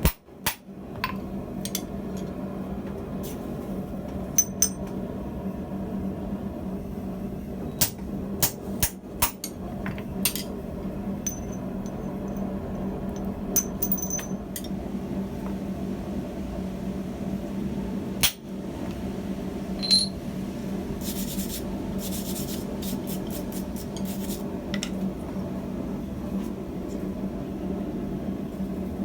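Hand hammer striking a steel punch through hot tong stock on the anvil: scattered single blows, a few with a brief metallic ring, over a steady hum.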